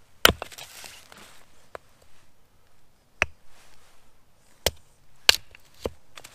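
Penobscot Bay kindling axe splitting firewood on a wooden chopping block: about five sharp chops, unevenly spaced, the first and fourth the loudest.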